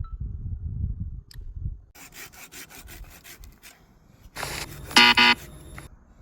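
A hand tool working wood: a low rumble at first, then quick rasping strokes, then a louder stretch of rasping with a short, loud, pitched screech near the end.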